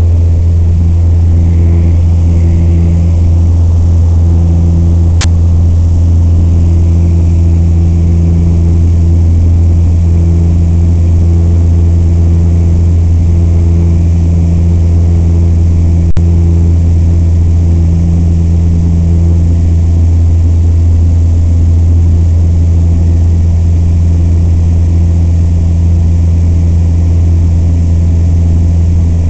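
Piper PA-28 light aircraft's piston engine and propeller running loud and steady at takeoff power, heard from inside the cabin. A short sharp click about five seconds in.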